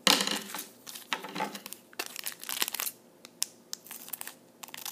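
Foil Pokémon booster pack wrappers crinkling and rustling as they are handled and snipped open across the top with scissors, in irregular bursts, loudest right at the start.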